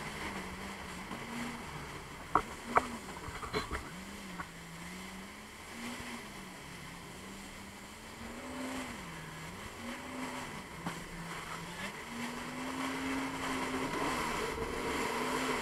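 Jet ski engine running at speed, its pitch rising and falling again and again as the throttle and the hull's grip on the water change, over a rush of water and wind. A few sharp knocks come between two and four seconds in.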